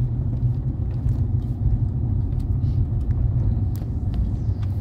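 Car driving on a mountain road, heard from the moving vehicle: a steady low rumble of engine and tyres, with a few light clicks through it.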